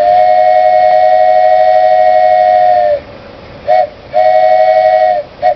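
Wooden train whistle blown with one finger hole covered, sounding a chord of two close pitches. A long steady blast of about three seconds dips slightly in pitch as it ends, followed by a short toot, a second blast of about a second and two more short toots.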